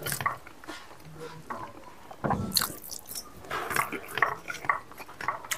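A man chewing and smacking his lips over a mouthful of rice and meat, picked up close by a clip-on microphone. Irregular wet clicks and smacks come in clusters, busiest about two seconds in and again in the second half.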